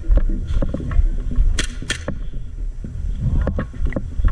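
A player's footsteps and gear rustling, picked up by a body-worn camera while moving through an indoor arena, with two sharp cracks close together about a second and a half in.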